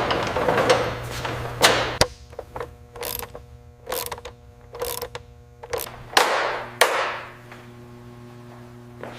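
Irregular mechanical clicks and knocks of workshop work on metal parts over a steady low hum, with a longer rushing sound about six seconds in.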